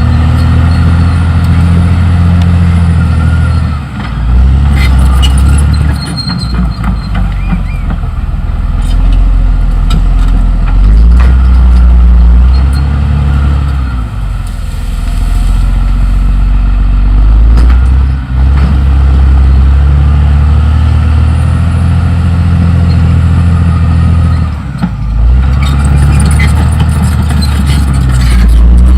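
Caterpillar D6R XL bulldozer's diesel engine running under load. The engine note drops and picks up several times as the dozer works, with scattered clanks.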